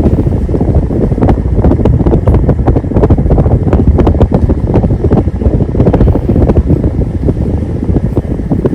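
Downdraft from a 52-inch CEC Saturn-knockoff ceiling fan blowing straight onto the microphone: a loud, fluttering rumble of wind noise.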